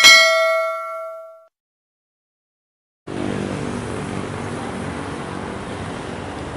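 A bright bell-like notification ding sound effect rings out and fades away over about a second and a half. After a short silence, steady street noise with a low engine hum comes in about three seconds in.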